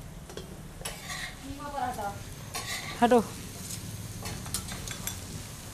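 A spoon stirring and scraping food in a frying pan, several sharp scrapes and knocks over a light sizzle of frying.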